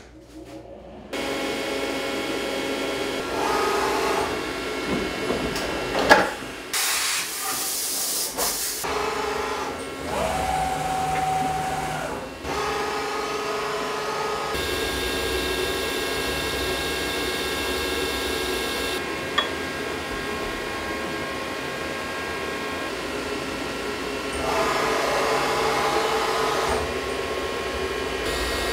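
CNC vertical milling machine running: spindle and axis motors give a steady mechanical whine of several tones that shifts abruptly several times. A sharp knock about six seconds in is followed by a loud hiss lasting about two seconds.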